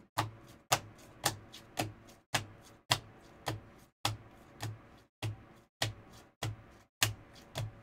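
Hard plastic card holders clicking against each other as cards in toploaders are flipped one at a time from the back of a stack to the front, a sharp click with a dull knock about twice a second.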